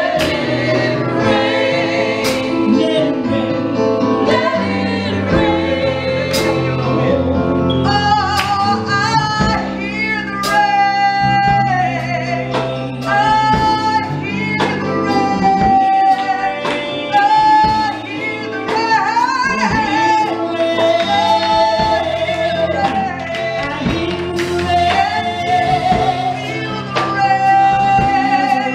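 Live gospel praise and worship singing, with a lead voice over a band accompaniment, with drums.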